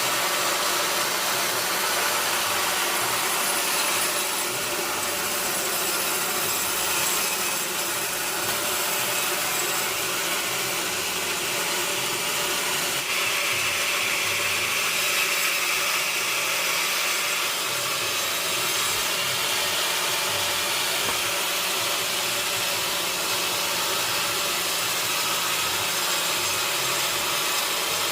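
A powered saw cutting steadily through a log, with the machine running under load and no break in the cut; the sound brightens a little about halfway through.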